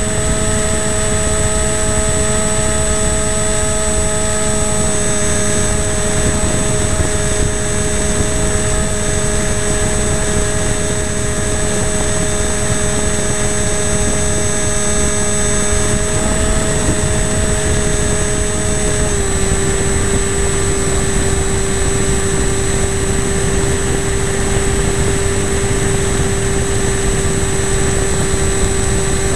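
FPV model airplane's motor and propeller running in flight as heard from the onboard camera: a steady whine over a rushing wind noise. The pitch shifts slightly about five seconds in and steps down a little about nineteen seconds in.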